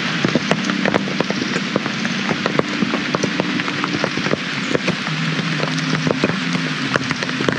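Heavy rain falling on a camp tarp, a steady hiss of rain thick with the sharp hits of single drops.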